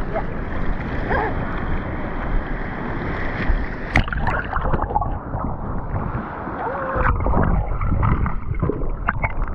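Water sloshing and splashing around a diver at the surface, with wind on the microphone. A couple of sharp knocks, and the sound turns duller about halfway through.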